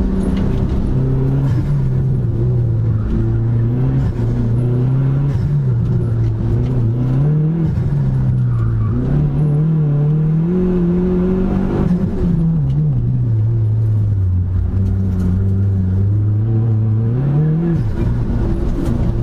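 Dodge Neon SRT-4's turbocharged four-cylinder engine heard from inside the cabin while being driven hard around an autocross course. The engine note climbs over several seconds, drops sharply about two-thirds of the way in, holds low, then climbs again near the end.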